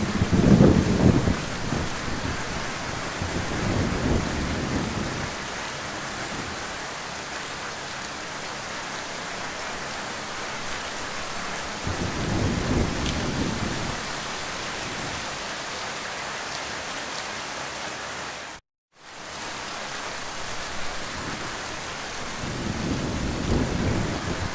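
Heavy rain falling steadily, with low rolls of thunder swelling up several times: loudest right at the start, then a few seconds in, about halfway through and near the end. The sound cuts out completely for a moment about three-quarters of the way through.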